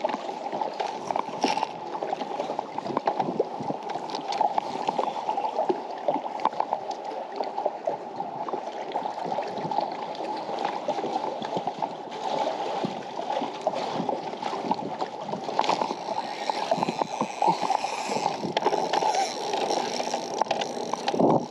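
Small waves lapping against the hull of a bass boat: a steady, dense patter of little splashes.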